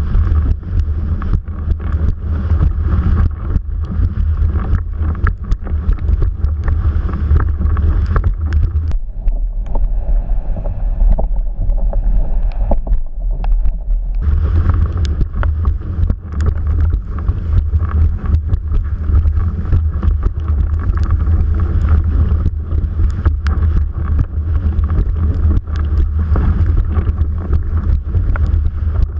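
Wind buffeting a GoPro mounted on a windsurf mast, over the rush of the board planing through choppy water, with frequent sharp knocks. About nine seconds in, the higher hiss drops away for about five seconds, leaving mainly a low rumble, then returns.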